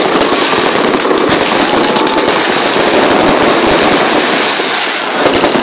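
Fireworks going off: a ground firework spraying sparks with a dense, rapid stream of crackling pops over a steady hiss, easing briefly about five seconds in.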